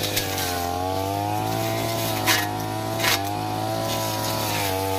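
Stihl brush cutter engine running at high revs, its pitch sagging and recovering as the blade bites into brush. Two sharp knocks come about two and three seconds in.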